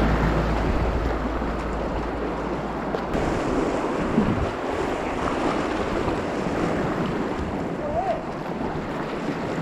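Rushing whitewater around a packraft on a fast alpine river: a steady noisy wash. A heavy low rumble, like wind on the microphone, cuts off abruptly about three seconds in.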